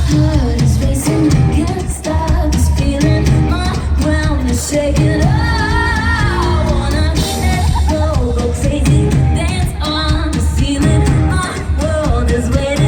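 Live pop song: a woman singing over an amplified band with a steady drum beat.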